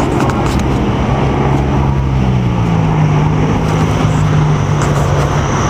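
Steady engine noise with a low hum that rises slightly in pitch about two and a half seconds in.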